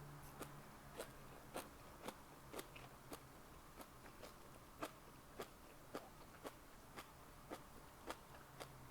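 Close-miked chewing: a steady run of small, sharp mouth clicks, about two a second.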